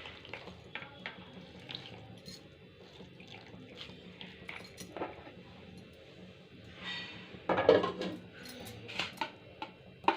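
Kitchen handling sounds: light clinks and taps of dishes and utensils as food is worked by hand, with a louder clatter about seven and a half seconds in.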